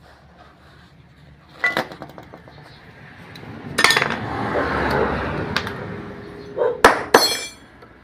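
Metal hand tools clinking and knocking against metal: a sharp clink after about a second and a half, a longer rattling shuffle in the middle, and two sharp ringing clinks near the end.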